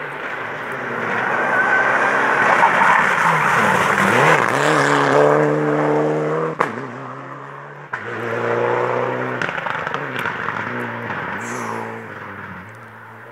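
Rally car at full stage speed, its engine note rising, dipping and rising again through gear changes as it takes a hairpin, with a sharp crack about six and a half seconds in. It then accelerates away, and the engine fades toward the end.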